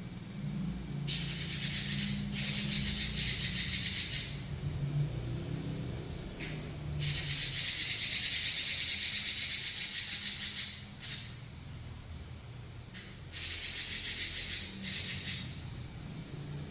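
Pekin robin (red-billed leiothrix) singing long rolling trills: three extended runs of very fast, high rattling notes with short pauses between them, over a faint low hum.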